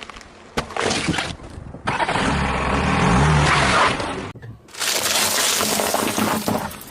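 A car tyre rolling over brittle objects and crushing them, with cracking and crunching in several short clips joined by abrupt cuts. The car's engine runs low underneath during the middle stretch.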